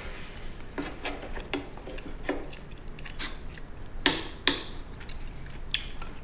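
Chopsticks clicking and tapping against dishes and an aluminium ramen pot while someone eats noodles: scattered light clicks about every half second to second, with two sharper ones around four seconds in.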